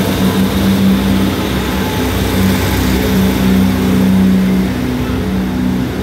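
Diesel passenger train standing at the platform with its engines running: a loud, steady hum.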